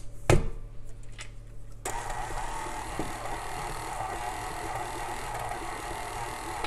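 Stand mixer's motor running steadily, its flat beater creaming butter and sugar in a glass bowl; the run starts suddenly about two seconds in, after a few knocks of handling the mixer.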